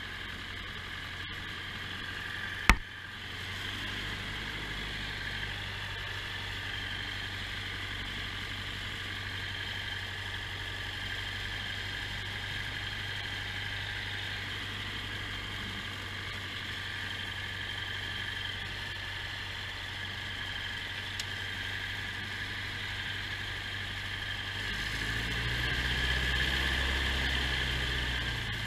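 Light aircraft's piston engine running steadily, heard from inside the cockpit, during a ski landing and rollout on snow-covered ice. A single sharp knock about three seconds in. The engine grows louder and deeper a few seconds before the end.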